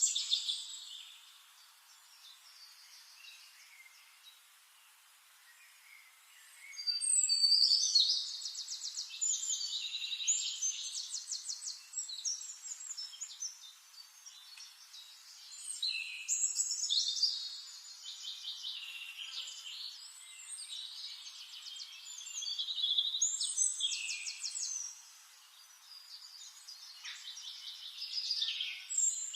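Songbirds singing: bursts of fast, high trilled song phrases a few seconds long, separated by quieter gaps.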